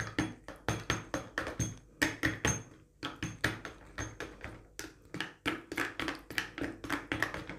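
A metal utensil knocking and scraping inside a funnel while it pokes thick mango pulp down into a bottle: a run of irregular light taps, about two or three a second.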